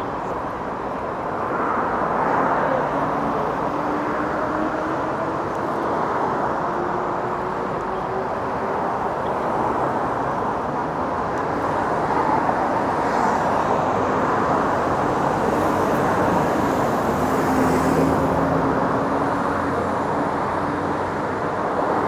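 Continuous traffic noise from a busy multi-lane road: a steady wash of tyres and engines, with the low hum of larger vehicles passing that drifts slowly in pitch for a few seconds at a time.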